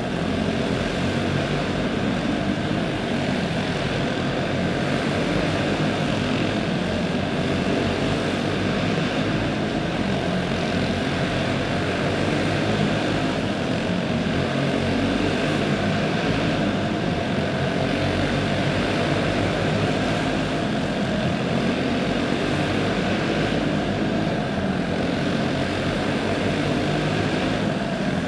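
Several clone-class racing karts' small single-cylinder four-stroke engines running hard together in a heat race, a steady overlapping engine drone, heard inside an indoor arena.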